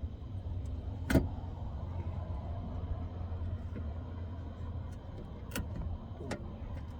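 A few sharp clicks and knocks from hands working on the speaker wiring and parts inside a pickup truck, the loudest about a second in and two lighter ones near the end, over a steady low hum.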